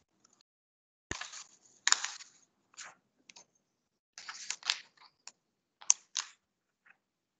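Irregular short clicks and rustling noises over a video-call line, each cut off abruptly. The loudest come about two seconds in and a sharp click near six seconds.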